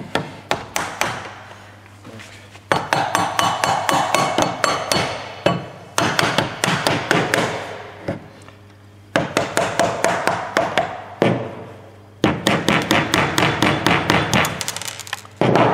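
Dead-blow mallet tapping the end shield of an induction motor, driving it home onto the motor body. The quick taps, about five a second, come in runs of a few seconds with short pauses between them.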